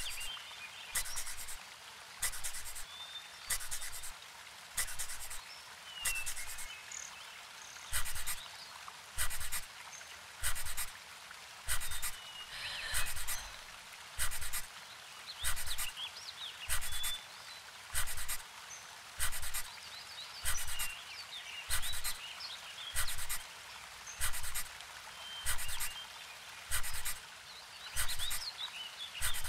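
Rhythmic heavy breathing, one breath about every second and a quarter, with birds chirping faintly now and then.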